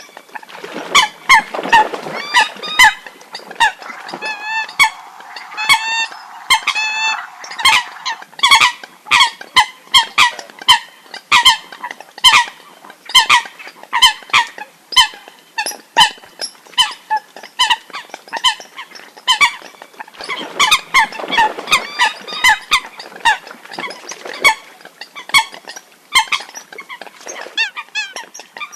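Water hens calling: a dense run of short, sharp honking calls, about two to three a second in uneven bursts, with a few longer wavering calls a few seconds in.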